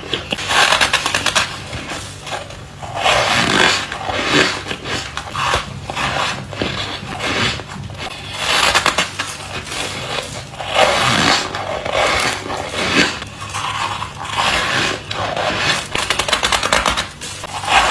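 Close-miked biting and chewing of squeaky ice 'dumplings', crunching and squeaking in repeated bursts, one bite after another.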